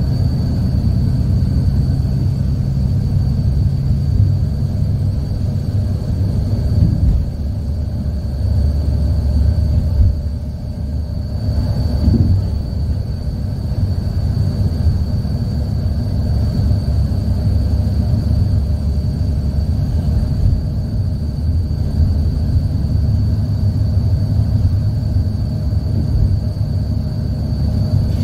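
Steady low rumble of a car travelling at highway speed, heard from inside: road and engine noise, with a faint steady high whine alongside.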